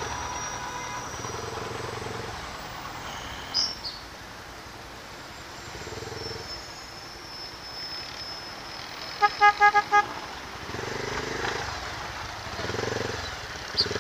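Motorcycle engine running in slow, stop-and-go traffic. About nine and a half seconds in, a vehicle horn gives five short toots in quick succession.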